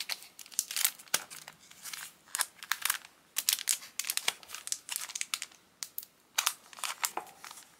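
Clear plastic cello packaging crinkling and crackling in short, irregular bursts as hands handle it.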